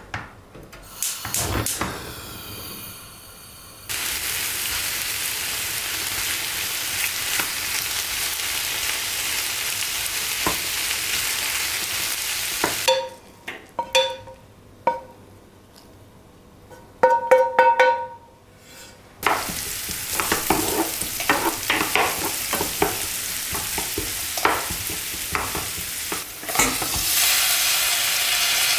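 Steady sizzling hiss of food frying in a pan, with light knocks and clatter. The sizzle breaks off for about six seconds in the middle, where a few short ringing clinks are heard.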